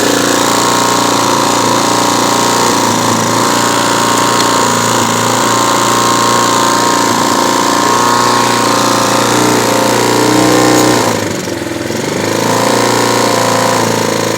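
A small Chinese ATV engine idling steadily. Its level dips briefly and the running note breaks about eleven seconds in, then settles back to a steady idle.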